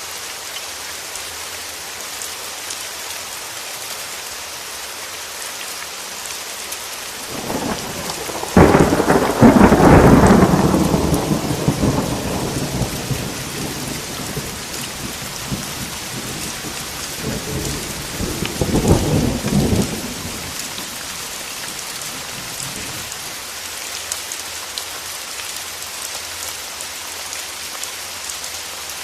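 Steady heavy rain, with a thunderclap that breaks with a sharp crack about eight seconds in and rolls away over several seconds, and a second, weaker roll of thunder a little later.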